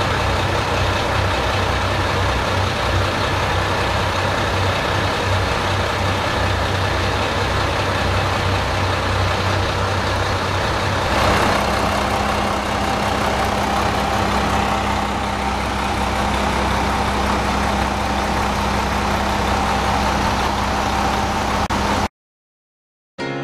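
Diesel railcar engine running steadily, with a deep hum. About halfway through the sound changes abruptly to another railcar's steady engine hum, and it cuts off just before the end.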